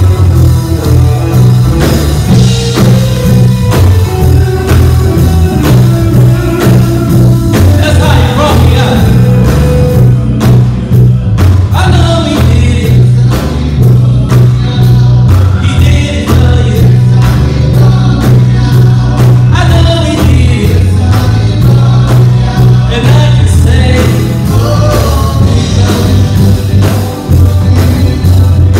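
Live gospel quartet song: a male lead singer over electric bass guitar, electric guitar and keyboard, with a steady beat. The mix is loud and dominated by the bass line.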